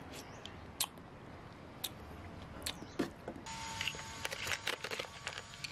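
Eating sounds: scattered sharp clicks of a metal spoon against cockle shells and a metal plate, with chewing. The clicks come thicker in the second half.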